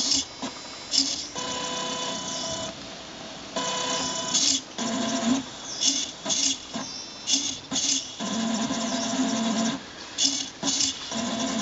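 Motors of a robotic painting arm whirring in stop-start bursts as it moves the brush, some runs holding a steady whine for a second or so.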